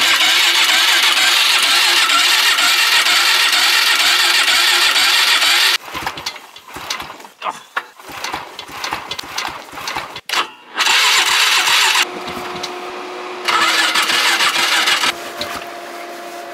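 Cold Polaris Sportsman 500 H.O. four-wheeler's single-cylinder engine being cranked over without catching. There is one long attempt of about six seconds, then two shorter ones about eleven and fourteen seconds in, with a steady hum between them. The engine is too cold to fire.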